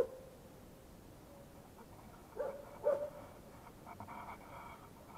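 A dog barking faintly: one bark at the start, two more about two and a half and three seconds in, then a longer, weaker call around four seconds in.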